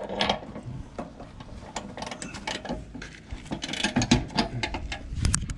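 Ratchet and spanner clicking in irregular runs of short metallic ticks as the leaf-spring shackle bolts are tightened.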